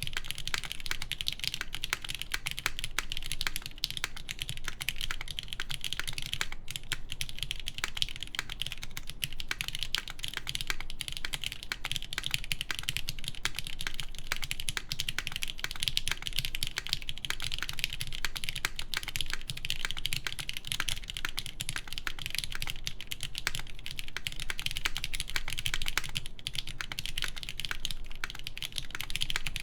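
Continuous fast typing on a mechanical keyboard with lubed linear Cherry MX Black switches in an aluminum plate, Cherry keycaps: a dense stream of keystroke clacks with a low thock under each press.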